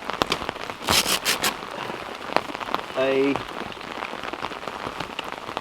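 Rain falling, with many separate drops tapping sharply on a nearby surface and a loud cluster of them about a second in.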